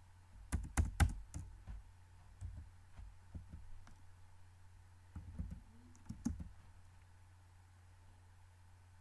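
Typing on a laptop keyboard in three short runs of keystrokes, picked up by the laptop's own built-in microphone, over a steady low hum.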